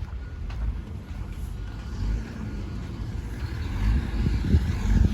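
Road vehicle noise: a low rumble of motor traffic that grows louder about four seconds in.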